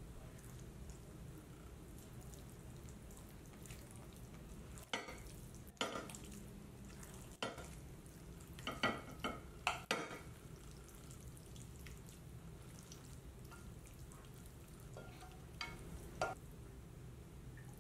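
Kitchen work: a few scattered clinks and knocks of utensils against cookware over a steady low background hum.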